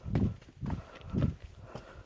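Footsteps of a person walking, about two steps a second, each a dull low thud.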